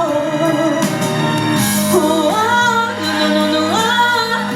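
A woman singing a held, wordless "oh" that slides between notes, over music.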